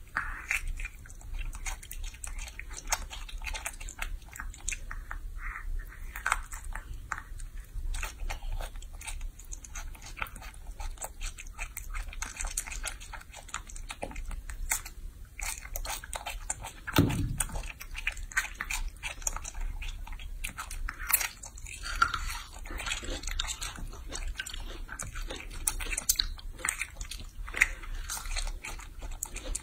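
Baby macaque biting and chewing pieces of soft fruit: irregular wet chewing, small smacks and clicks. One louder low thump comes a little past halfway.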